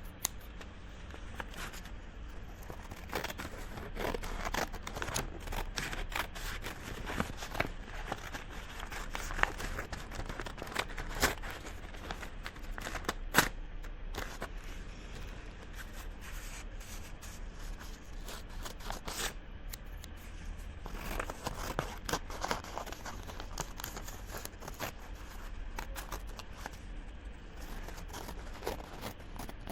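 Scissors cutting paper: a long run of irregular crisp snips with the rustle of the paper between them, the loudest single snip about halfway through.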